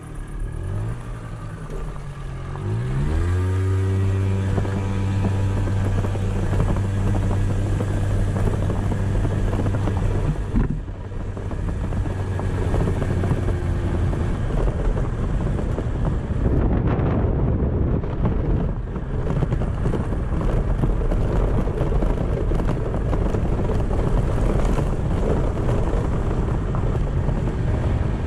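A Kymco's engine under way: it revs up over the first three seconds, then holds a steady pitch. About ten seconds in, the pitch drops off and the sound turns into a rougher mix of engine rumble, tyres on gravel and wind on the microphone.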